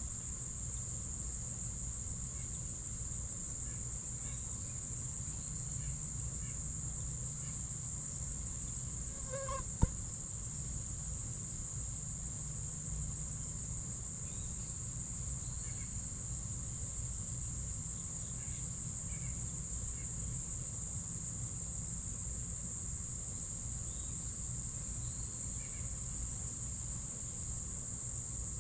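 Steady high-pitched chorus of insects such as crickets, with a few faint bird chirps scattered through it. About ten seconds in, a short low-pitched call is heard, followed at once by a single sharp click.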